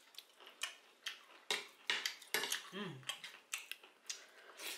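Eating at a meal: a run of sharp, irregular clicks and clinks of cutlery against dishes.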